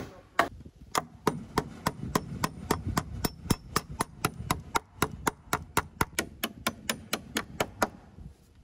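Claw hammer driving nails through a galvanized metal hurricane tie into a wooden roof truss and top plate. A quick, steady run of strikes, about four or five a second, stops shortly before the end.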